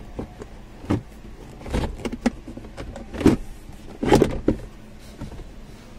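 Plastic centre-console trim around a Skoda Octavia's gear selector creaking and clicking as it is pulled loose from its clips. A handful of separate knocks and creaks, the loudest about three and four seconds in.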